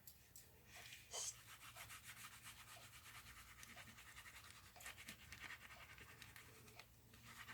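Near silence with faint rubbing and small taps of paper and a liquid glue bottle being handled, and a light click about a second in.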